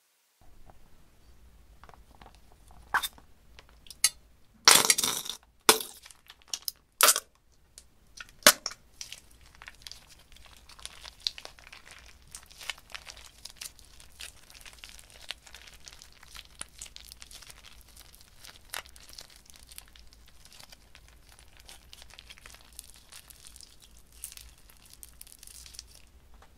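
A plastic bag torn open with a few loud rips, then crinkled and squeezed as clear gel with small pink hearts slides out into a glass dish, with many light crackles and clicks.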